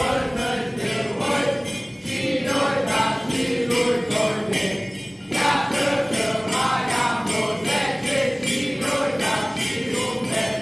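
A group of voices singing a Christmas carol from a Romanian nativity play, with small bells shaken in a steady beat, about three a second.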